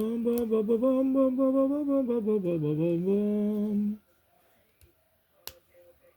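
A man humming a wordless tune in one long stretch, his pitch wandering up and down, stopping about four seconds in; a single faint click follows.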